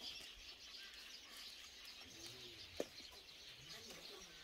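Faint birds chirping in the background, with one sharp click about three seconds in.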